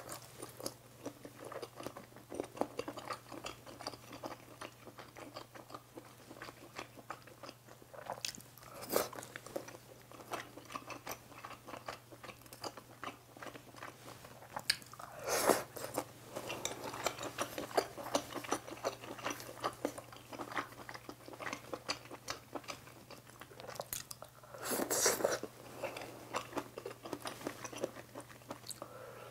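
Close-miked chewing and biting of budae-jjigae (army stew) ingredients such as ham, sausage and ramen noodles, with many small wet mouth clicks. There are louder bursts about 15 and 25 seconds in, over a faint steady hum.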